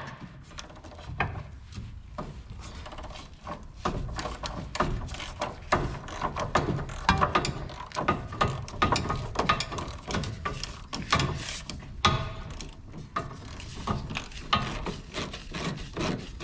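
Socket ratchet clicking in quick repeated strokes on a rusted rear subframe bolt of a 1984 Pontiac Fiero. The bolt only spins instead of coming loose, the sign that its nut has broken loose inside the frame.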